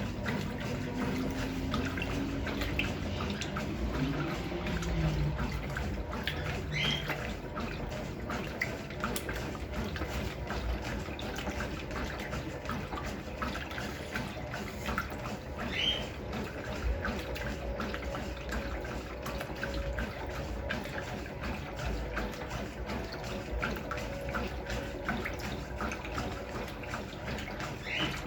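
Brastemp Clean 6 kg washing machine at work, with water running and splashing in its tub in a steady, irregular wash.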